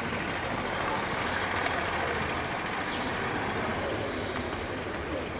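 Steady rushing background noise with no distinct knocks or steps, swelling slightly in the middle and easing off toward the end.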